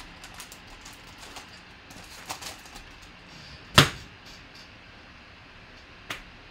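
Hard clear plastic trading-card cases being gathered and handled: light clicking, with one sharp plastic clack just under four seconds in and another near the end.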